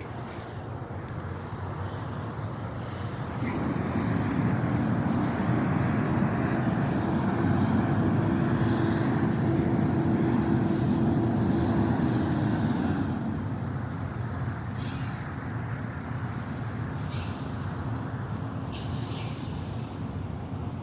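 Road traffic with a large vehicle's engine that grows loud about three seconds in, holds a steady low drone, and fades again about thirteen seconds in.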